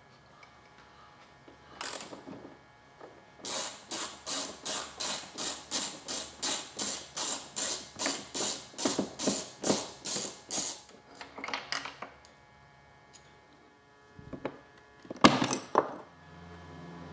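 A ratchet clicking in a long run of quick, even strokes, about three a second. It ends with a short burst and then a few louder clicks near the end.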